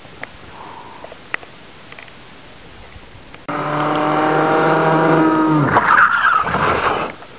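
Go-kart engine at high revs as a kart passes close by, starting suddenly about halfway in; the note holds steady, then drops in pitch as the kart goes past and fades.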